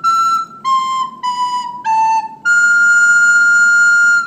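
Descant recorder playing a slow phrase of single notes, upper E, C, B, A, then holding a high F for nearly two seconds. Each note is clean and steady, with short breaks between.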